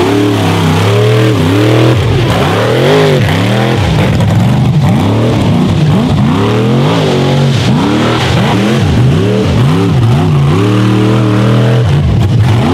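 Rock bouncer buggy's engine revved hard and repeatedly as it climbs a steep dirt hill, the pitch rising and falling in quick surges about once a second.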